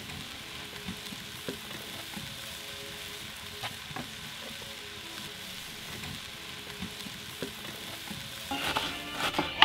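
A steady hiss with a few soft clicks scattered through it.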